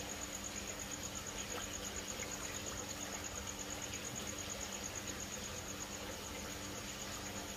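A cricket chirping in a high, even pulse, several times a second, over water pouring and splashing from a pipe into a plastic tub with a low steady pump hum.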